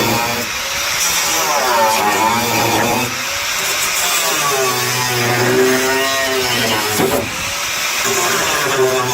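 Power cutting tool working through car body sheet steel, its motor pitch rising and falling as the load on it changes, with a hiss over it.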